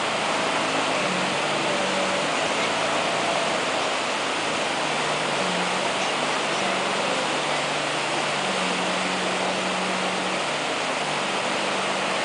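Steady rush of whitewater rapids, with a jet boat's engine running underneath as a faint hum whose note shifts a little as the boat drives up the rapid.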